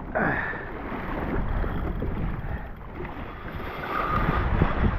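Wind buffeting the microphone over water sloshing around a kayak.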